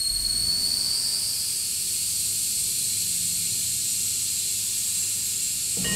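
Steady high-pitched hiss of a pressurized gas jet, air or steam escaping from a nozzle, with a faint whistle over it that fades out about a second in.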